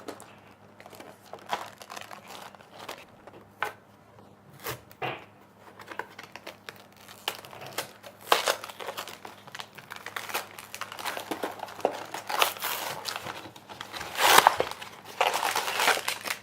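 A small cardboard LEGO box being torn open by hand and its plastic parts bags crinkling, with scattered clicks at first. The crinkling grows denser in the second half, with a loud burst near the end.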